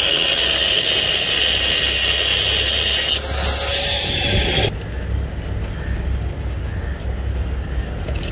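Angle grinder with an abrasive cutting disc cutting through a stainless steel chain link, a loud, steady, high-pitched grinding. The tone changes about three seconds in, and the grinder stops abruptly after about four and a half seconds, leaving a low hum.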